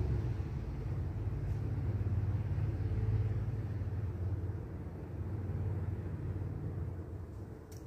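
A steady low rumble that eases off over the last few seconds, with one short click near the end.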